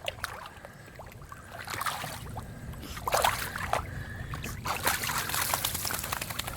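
A dog rooting and wallowing through a muddy puddle: irregular wet sloshing and splattering of mud and water, busier in the second half.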